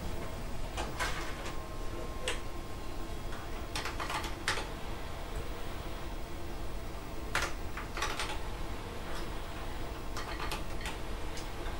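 Kaypro II keyboard keys clicking in short scattered runs as commands are typed, over a low steady hum. Early on, a 5¼-inch floppy disk goes into drive B and the drive door is latched shut.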